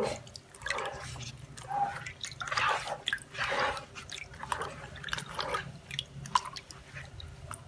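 Indigo dye liquid sloshing and dripping in a large clay vat as a gloved hand spreads and lifts a silk scarf through it, in irregular splashes. This is the dipping stage of indigo dyeing.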